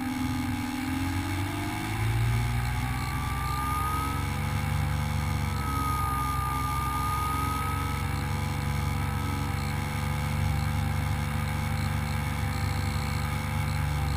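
Electric motor and propeller of an HK Raptor FPV foam plane running steadily, with wind rush as picked up by the onboard camera. Its whining pitch dips at the start, rises again about two seconds in, then holds with slight wavering as the throttle shifts.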